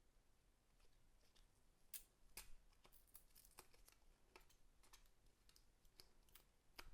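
Faint, scattered clicks and light rustles of the charging cable and its packaging being handled, denser from about two seconds in.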